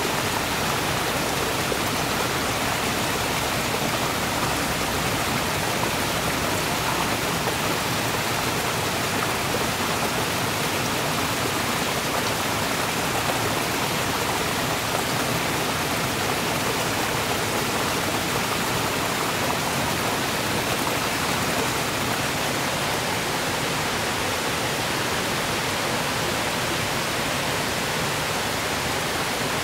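Small forest stream running steadily over rock cascades, an even rushing of water.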